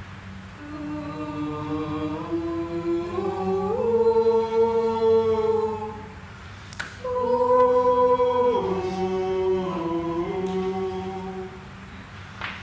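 Choir singing long held notes that step up and down in pitch over a low sustained drone, with a dip in level about six seconds in. Two sharp clicks cut through, about seven seconds in and near the end.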